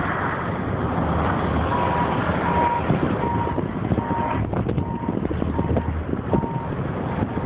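A vehicle's backup alarm beeping about eight times, roughly three beeps every two seconds, over the steady rumble of a vehicle on the road.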